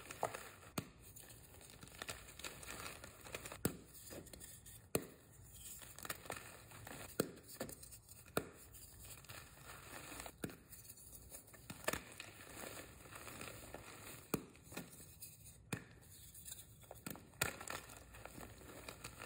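Reformed white gym chalk being crushed in bare hands: a soft, steady crumbling with sharp crunches every second or two as the pressed chunks break apart.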